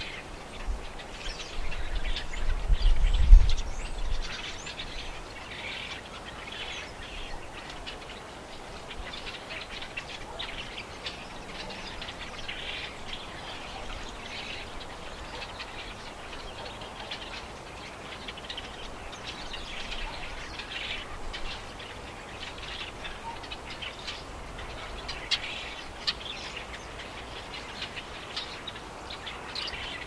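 A flock of small finches at seed feeders chirping and twittering, with many short high calls throughout. A low rumble, the loudest sound, comes about two to four seconds in.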